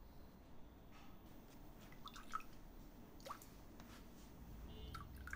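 Quiet room tone with a few soft, scattered clicks and small clinks at a dinner table, cutlery and dishes touching.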